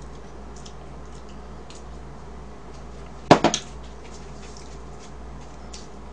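Tableware clattering once on the table: a sharp clack about three seconds in, followed quickly by two or three smaller clicks, over faint room noise.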